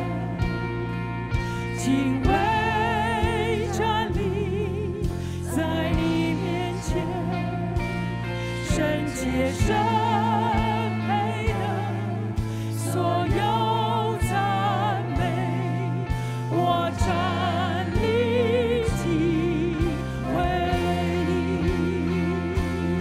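Live worship band with drum kit, bass and electric guitar backing singers in a slow Mandarin worship song, the words about standing in awe of God. The bass drops out for a stretch in the middle and comes back near the end.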